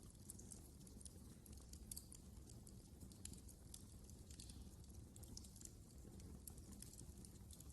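Faint wood fire crackling: scattered sharp snaps and pops at irregular intervals over a low, steady rumble of burning.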